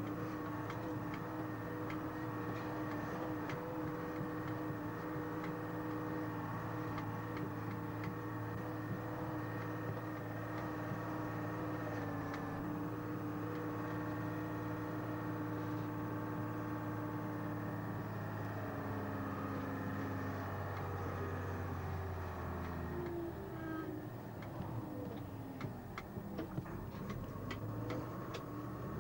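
A milk tanker lorry's diesel engine heard from inside the cab, running steadily at road speed. About two-thirds of the way through it slows, its pitch falling. A run of sharp clicks follows, then the engine rises in pitch again as it pulls away.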